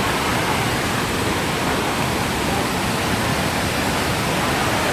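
Waterfall water rushing in a loud, steady roar.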